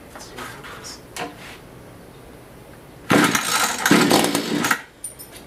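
Mantis tiller's two-stroke engine being pull-started after a carburetor replacement: about three seconds in, the rope is pulled and the engine fires in two surges for under two seconds, then stops.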